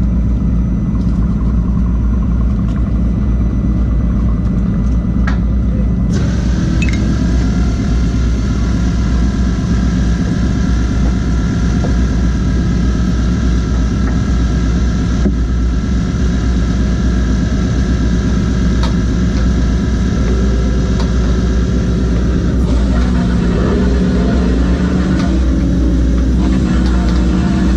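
A fishing boat's engine and deck machinery running with a steady low rumble. In the last few seconds a wavering mechanical whine joins in.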